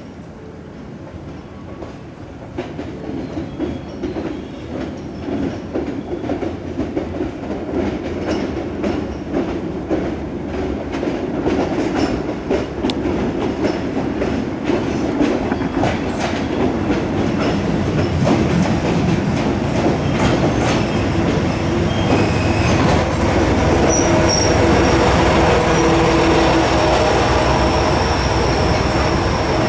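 Train drawing near, growing steadily louder: its wheels click over the rail joints, and a steady metallic wheel squeal joins in the later part as it comes close.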